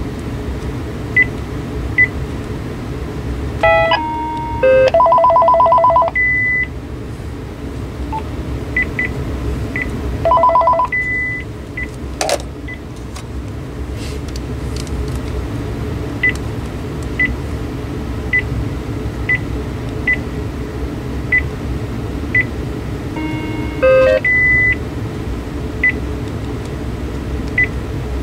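Panasonic KX-TG9333 cordless phone handset beeping as its keys are pressed, roughly once a second. Short ringtone previews play between the beeps: a run of stepped tones and a two-tone warble about four seconds in, another brief warble near ten seconds, and a stepped run of tones near the end, as the ringer tones are scrolled through.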